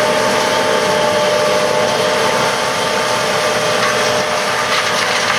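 John Deere S680 combine running steadily while harvesting corn: a continuous engine and machinery drone with a steady whine over it.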